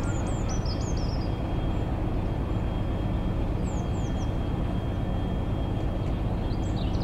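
Diesel locomotives, a GBRF Class 69 and its neighbour, idling with a steady low hum and a thin steady high tone over it. Small birds chirp briefly near the start, about halfway through, and again near the end.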